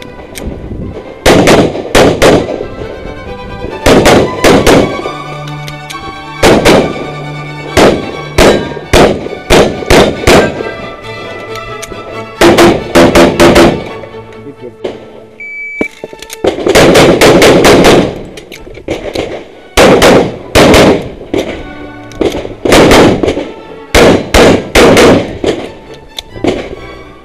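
ADC Master Elite pistol firing in quick pairs and short strings of shots, with pauses of a second or two between strings. Background music plays under the shots.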